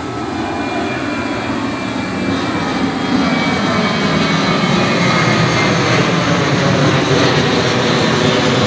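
Engines of a twin-engine jet airliner passing low overhead: a steady rumble with a faint whine above it, growing louder about three seconds in.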